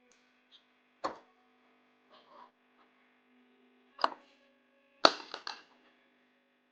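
Handling sounds: a sharp knock about a second in, another about four seconds in, then a quick run of clatters just after five seconds, with some soft scuffing in between. A faint steady hum sits underneath.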